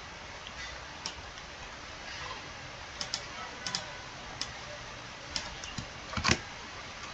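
Scattered, irregular clicks of a computer mouse and keyboard over a steady low hiss, with a louder double click near the end.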